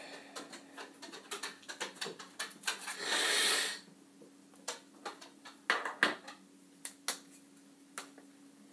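Felt-tip marker scratching across paper on a clipboard in quick hatching strokes, with one louder scrape lasting under a second about three seconds in. This is followed by sharp clicks and taps as markers are put down and picked up.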